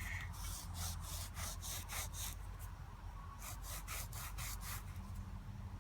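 A freshly dug buffalo nickel being rubbed on trouser fabric to clean off the dirt: quick repeated scratchy strokes, about two or three a second, in two runs with a short pause between them.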